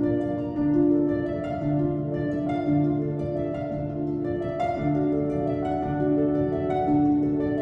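Background music: gentle instrumental with harp-like plucked notes over sustained tones, changing roughly once a second.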